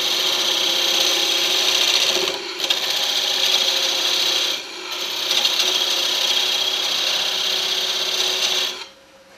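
Hand-held turning tool cutting a spinning wooden blank on a woodworking lathe: a steady rasping cut, lifted off twice for a moment, with a faint hum under it. The cut stops shortly before the end, and it is running smoothly with the tool rest lowered.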